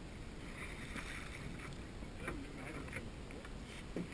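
Shallow river water splashing and sloshing around an inflatable raft as a person wades beside it and moves it, a scatter of short splashes over a steady low rush.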